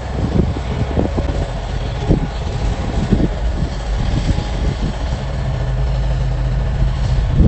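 Excavator's diesel engine running at work with scattered short knocks and clunks. About five seconds in, the engine note settles into a steadier hum, and a sharp loud knock comes near the end.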